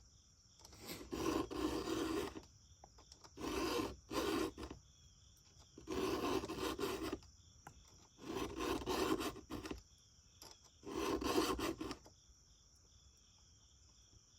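A round file rasping across a chainsaw chain's cutters in slow, separate strokes, roughly one every two seconds, as the chain is hand-sharpened.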